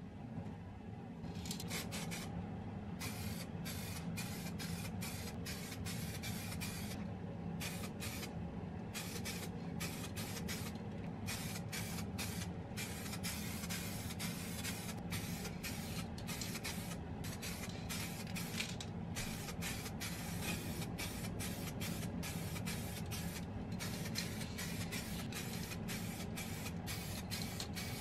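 Aerosol can of white car paint spraying in repeated hissing bursts, some short and some long, starting about a second in, as a coat of paint is applied. A steady low hum runs underneath.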